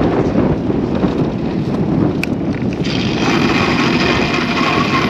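Wind buffeting the microphone of a moving bicycle rider: a loud, steady rushing rumble. A single click comes just after two seconds, and about three seconds in a brighter steady hiss with faint whining tones joins it.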